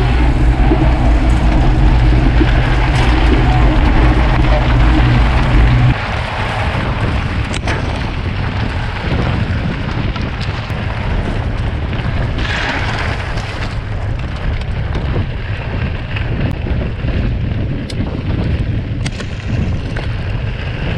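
A loud steady low hum for about the first six seconds, which cuts off abruptly. Then wind rumbling on an on-board camera microphone and tyre noise as a mountain bike races in a pack on a dusty gravel track, with occasional sharp knocks from bumps.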